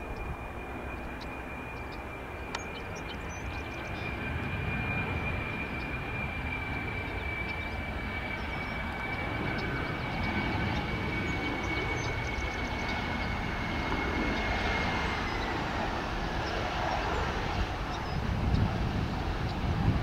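Boeing 737-500's CFM56-3 turbofan engines on final approach: a steady high whine over a broad rush that grows louder as the jet comes closer. About three-quarters of the way through the whine drops in pitch as the engines throttle back, and louder swells come near the end as the jet reaches the runway.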